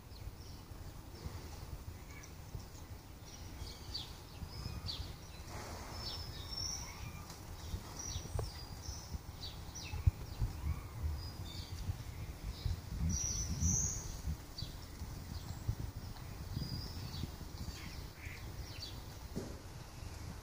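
Small birds chirping in short, high, scattered calls over a steady low rumble, with a few soft thumps and one sharp click about ten seconds in.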